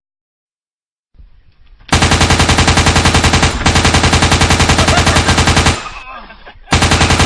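A rapid string of loud sharp bangs, about ten a second, in two long bursts with a short break between, like automatic gunfire.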